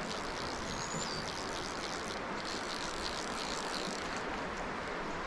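Stream water flowing in a steady rush, with a brief high falling whistle about a second in.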